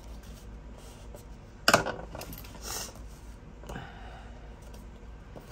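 Paper-craft handling on a scoring board: a sharp click a little under two seconds in, then soft rubbing and scraping of paper.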